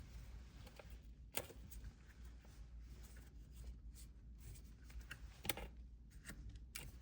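Faint handling sounds of acrylic stock being positioned: a few light, sharp clicks and taps, three of them standing out, over a low steady hum.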